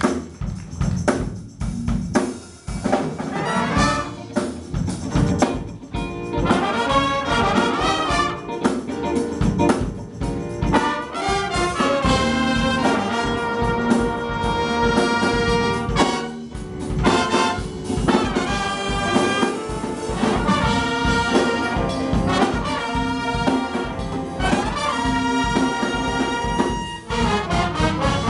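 Jazz big band playing a funk tune: saxophone, trumpet and trombone sections in chords and riffs over a drum kit.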